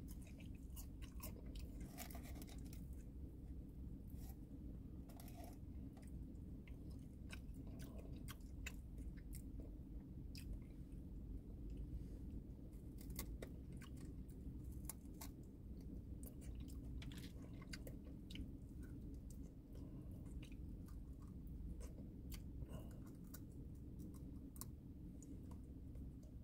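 A person chewing and crunching fried chicken close to the microphone, with many small crackly crunches over a steady low rumble.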